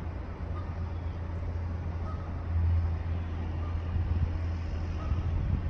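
Steady low outdoor rumble that swells slightly about halfway through.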